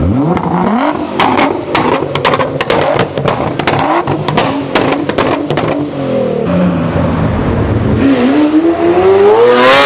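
Supercar engine revving hard: the pitch climbs quickly at the start, a run of sharp exhaust pops and crackles follows over the next few seconds, and the revs drop back. Near the end the engine winds up in a long rising rev to its loudest point.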